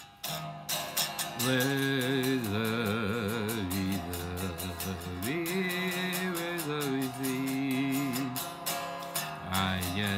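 Stratocaster-style electric guitar playing a lead melody of held notes, several wavering with vibrato, over a steady beat.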